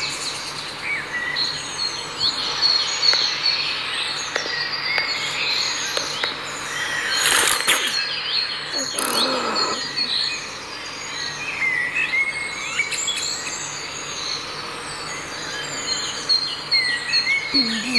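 Birds chirping and singing, many short calls overlapping, with a brief rush of noise a little before halfway.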